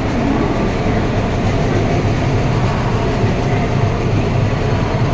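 A moving train, with a steady low rumble of the rail wagons running on the track.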